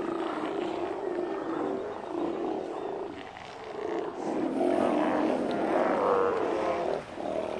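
A crowd of Steller sea lions growling and roaring together on their haul-out rock, many deep calls overlapping and bending in pitch. The chorus dips around the middle and grows louder in the second half.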